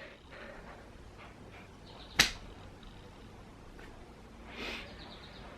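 A single sharp click about two seconds in, over faint room noise, followed near the end by a short, soft noise.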